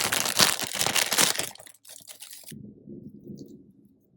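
Plastic packaging crinkling and tearing as a squishy is unwrapped, loud for the first second and a half and fading out by about two and a half seconds in. After that come quieter, muffled handling sounds.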